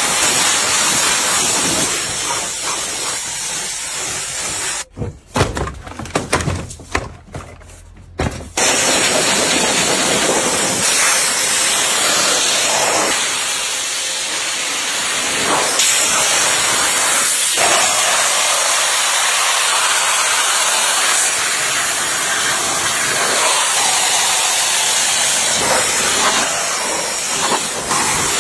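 Loud steady hiss, broken about five seconds in by a few seconds of uneven low thumps before the hiss resumes.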